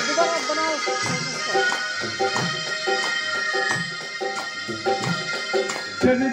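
Electronic keyboard playing an instrumental interlude of a Garhwali devotional song to Ganesh: a melody over held notes, with a steady drum beat.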